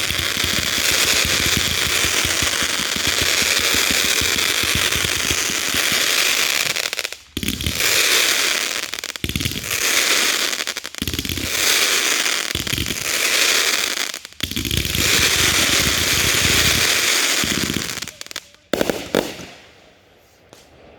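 Consumer fireworks cake firing: dense rapid crackling and popping at first, then a run of separate bursts about every second and a half to two seconds, dying out with a last pop or two near the end.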